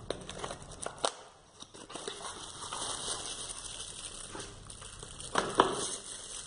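Hands handling packaging: a small cardboard box and plastic-bagged accessories rustling and crinkling, with a few light clicks and knocks, the loudest about five and a half seconds in.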